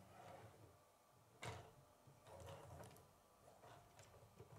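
Faint scattered clicks and knocks of a plastic K'nex model being handled and shifted on a wooden table, the sharpest about a second and a half in.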